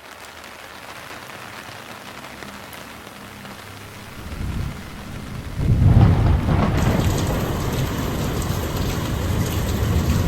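Steady rain, joined by rolling thunder: a deep rumble builds about four seconds in and is loudest about six seconds in, and the rain stays louder after it.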